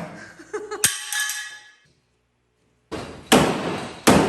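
Sheet metal being struck: one ringing metallic clang about a second in, then, after a short silence, heavy hammer blows at an even pace a little under a second apart, each ringing out.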